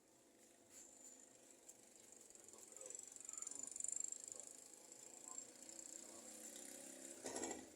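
Javan myna making a high, thin, hissing whistle that swells about three to four seconds in, then a short harsh call near the end.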